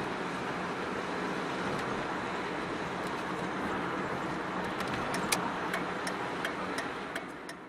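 Steady road noise of a car driving along a street at night, with a faint low hum under it. A run of sharp clicks comes in during the last few seconds, and the sound then fades out.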